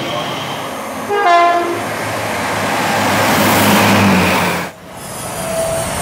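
A Class 345 electric train passes through at speed. About a second in there is a short horn blast, then the rush of the train grows louder before breaking off suddenly, and a brief single tone follows.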